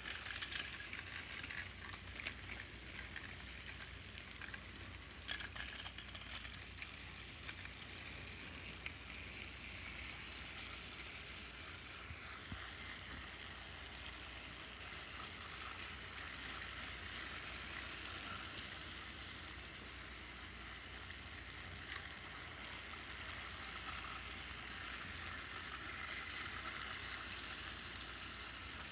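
Many battery-powered TrackMaster toy trains running together on plastic track, giving a steady whirring of small motors and wheels. A few sharp clicks come in the first several seconds.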